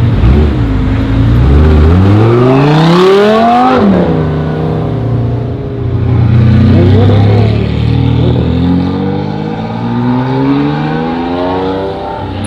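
Tuned Audi R8 V10 Plus with a Per4mance exhaust accelerating hard from a standstill, the V10's pitch climbing steeply for about three seconds, then dropping sharply at an upshift about four seconds in. After a lull, engine revs climb again more slowly, from about eight seconds in until near the end.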